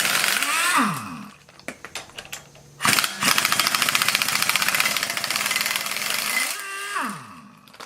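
Impact wrench hammering out red-Loctited flywheel bolts on a small-block Chevy V8: a short burst that winds down about a second in, a few clicks, then a longer rapid hammering from about three seconds in that winds down with a falling pitch near the end. The threadlocker gives way to the impact.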